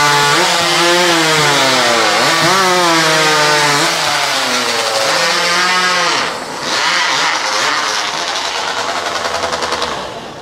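Several two-stroke chainsaws cutting through logs at full throttle, their pitch sagging and recovering under load. About six seconds in the sound drops as cuts finish, and the saws run lower and unevenly before dying down near the end.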